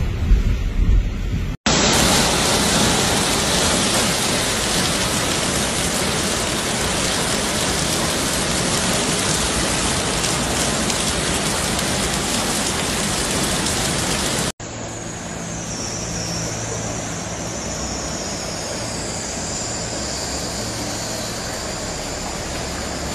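Heavy typhoon rain and rushing floodwater: a dense, steady hiss. It cuts off suddenly twice as the clips change, and the last stretch is a softer downpour with a faint low hum.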